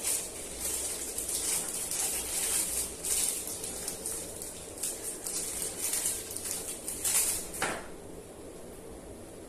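Hands handling plastic packaging and figure parts: crinkly rustling with small plastic clicks and taps, and one sharper click about seven and a half seconds in before it goes quieter.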